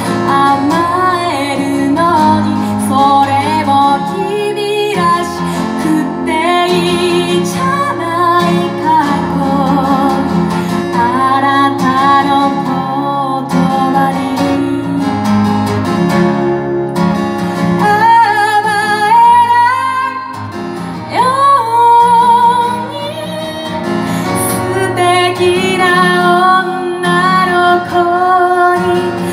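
A woman singing into a microphone with vibrato on held notes while strumming an acoustic guitar, a solo live performance.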